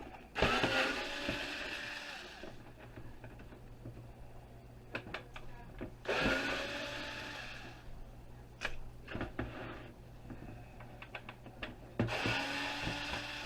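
Power drill-driver backing screws out of an electric heater's top cover, running in three short bursts that spin up with a rising whine, with small clicks and taps of screws and plastic between bursts.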